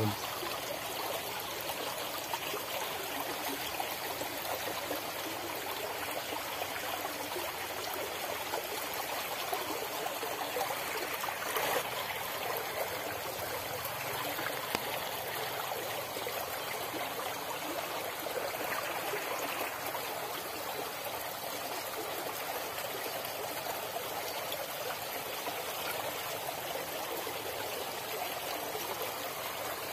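Small, shallow stream running over stones: a steady burble of flowing water.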